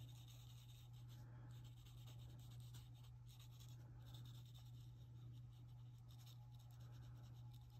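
Faint soft strokes of a water brush's bristle tip dabbing and brushing across paper, over a steady low hum.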